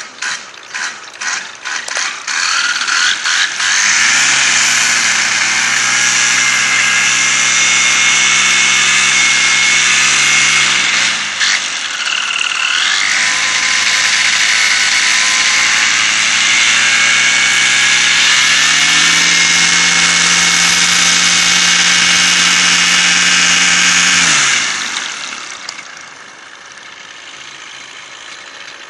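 Paramotor engine being pull-started: several short cranking pulls, then it catches about four seconds in and runs steadily. Its pitch drops to a lower speed after about eleven seconds, rises again near nineteen seconds, and the engine is shut off about twenty-four seconds in, winding down.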